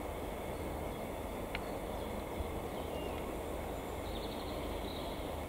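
Diesel shunting locomotive running with a steady, low rumble as it creeps toward the camera, with a few faint bird chirps.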